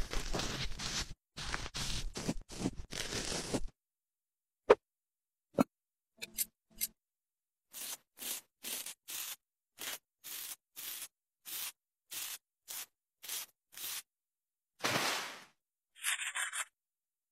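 Shaving sound effects: a crackling fizz of shaving foam for the first few seconds, then a cartridge razor scraping over beard stubble in about a dozen short strokes, roughly two a second, with one longer swipe near the end.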